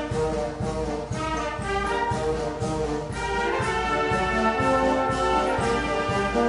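Brass band playing, with long held chords in the second half.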